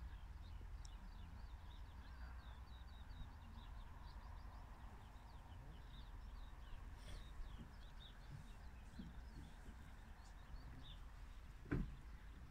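Small birds twittering in many short, high chirps over a low steady rumble, with a single sharp knock near the end.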